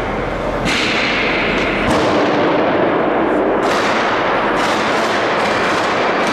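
Gunshots: four sharp reports about a second or two apart, each followed by a long echo in the large station hall over a constant din.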